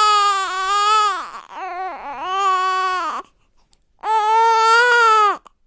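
Newborn baby crying in long, steady wails: two in a row, then a short pause and a third wail that cuts off abruptly near the end.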